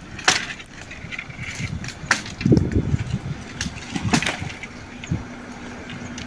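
Irregular knocks and clattering: about half a dozen sharp strikes spread unevenly over a low background.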